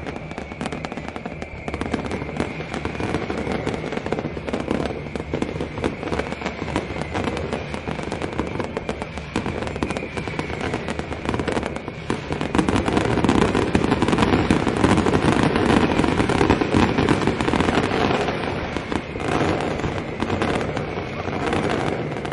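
Fireworks going off in a dense, continuous barrage of crackling bangs, growing louder about halfway through.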